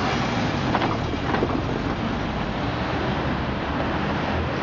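SGP/BBC electric cog-wheel railcars running along the rack track, with a couple of short sharp sounds about a second in and wind on the microphone.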